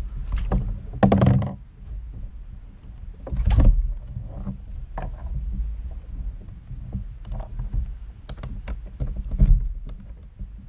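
Kayak being driven in reverse: water sloshing against the hull under a steady low rumble, with several knocks and clunks from the boat. The loudest come about a second in, about three and a half seconds in, and near the end.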